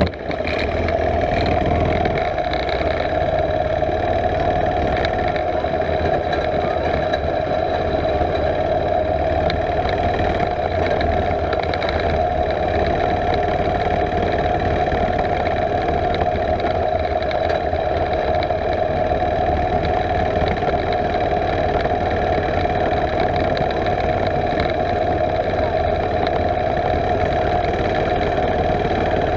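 Mini bike's small engine running steadily as it is ridden, a constant drone that holds the same pitch throughout.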